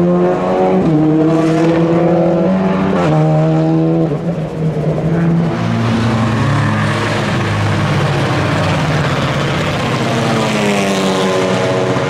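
TCR touring cars' 2-litre turbocharged four-cylinder engines at racing speed. In the first few seconds an engine pulls hard through the gears, its pitch climbing and then dropping at each upshift, about a second in and again about three seconds in. From about five seconds in, several engines are heard together at a lower, noisier note, climbing steadily in pitch near the end as a car accelerates.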